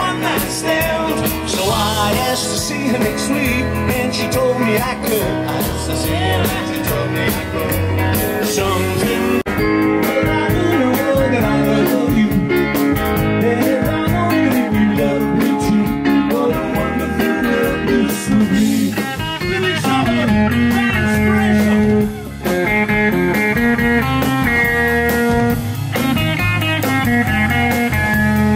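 Live rock band playing: electric guitar to the fore over bass and drums.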